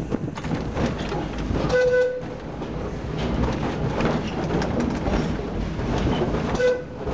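Sóller tramway's wooden electric tramcar rumbling and clattering along street track. Its warning horn gives two short toots, about two seconds in and again near the end.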